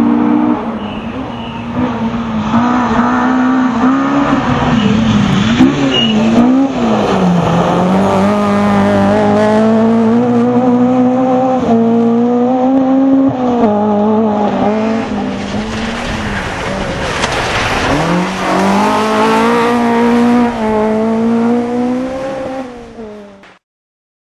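A 1.4-litre Vauxhall Corsa rally car's engine pulled hard, its pitch climbing and then dropping sharply as it shifts gear, several times over. The sound cuts off suddenly near the end.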